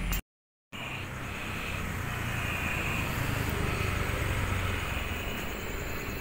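Steady low engine hum of street traffic, cut to silence for half a second just after the start.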